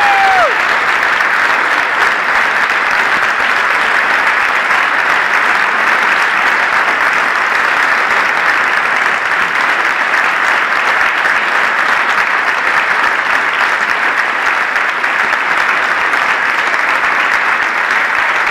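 Audience applauding steadily, a dense clapping that holds at one level throughout, with a brief falling tone at the very start.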